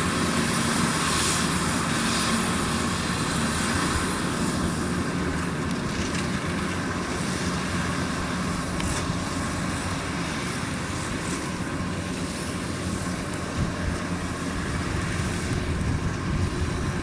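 Kubota DC-93 combine harvester running steadily under load while cutting rice: a continuous engine drone mixed with the noise of the cutting and threshing machinery.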